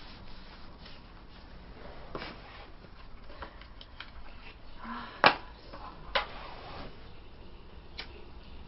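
Faint handling sounds in a quiet room, then two sharp clicks about a second apart, the first the loudest, and a small click near the end: a hand lighter being struck to light a cigarette.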